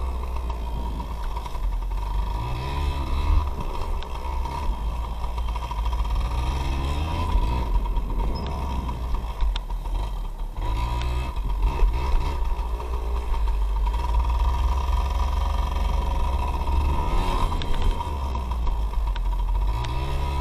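Yamaha PW80's two-stroke single-cylinder engine running as the bike is ridden on premix, its oil injection bypassed. It revs up several times, with rising pitch about 2, 6, 10 and 17 seconds in.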